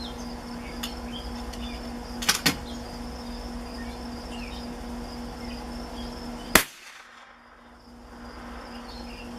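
A single sharp shot from a Savage Mark II bolt-action .22 LR rifle about two-thirds of the way in, firing Remington Golden Bullet bulk ammunition. Two quick clicks come about two seconds in, over a steady insect buzz.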